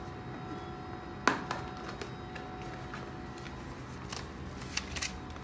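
Cardboard GoPro box and folded paper inserts being handled: a sharp tap about a second in, then a few lighter clicks and paper rustles near the end, over a steady background hum.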